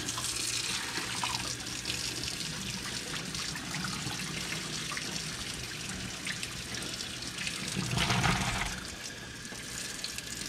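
Kitchen sink faucet running cold water over freshly strained pasta, a steady rush of water with one brief louder surge about eight seconds in.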